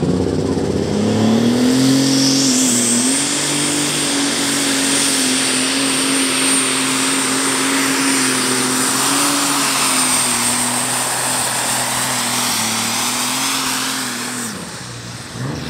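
Methanol-fuelled Super Stock pulling tractor with a modified John Deere 6466 engine at full power under the load of the pulling sled. The engine note climbs about a second in and then holds steady, with a high turbo whistle over it from about two seconds in. Near the end the engine drops away as the run ends.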